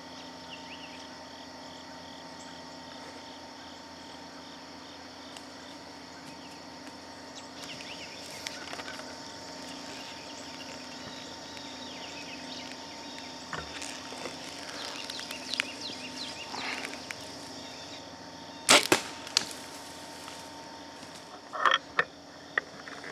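A compound bow shot at a deer: a sharp double crack of the string releasing about three-quarters of the way through, followed a few seconds later by a short cluster of sharp knocks. Light rustling and small clicks come before the shot.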